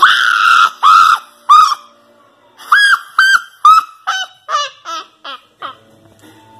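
A series of loud goose-like honking calls, about a dozen in all. Three long honks come in the first two seconds, then after a short pause a quicker run of shorter honks that grow fainter and lower in pitch.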